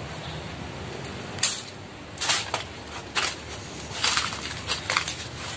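Footsteps crunching on dry fallen leaves over a concrete walkway, about one step a second, starting about a second and a half in.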